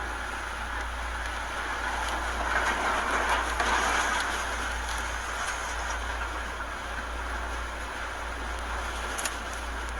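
Hurricane-force wind roaring, swelling louder in a gust about two and a half seconds in before easing back, with a steady low rumble underneath.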